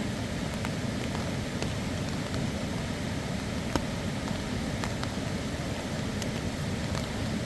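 Steady monsoon rain, with scattered single drops ticking close by; one drop about halfway through is louder.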